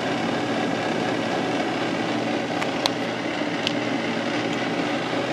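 Manual lathe running in low gear for threading, a steady whir of the motor and gear train, with a few faint clicks near the middle.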